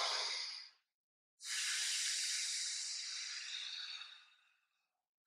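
A man's long hissing breath out as he lifts a leg in a Pilates core exercise, the effortful exhale on the lift. It lasts about three seconds and fades toward the end, after a short breath at the very start.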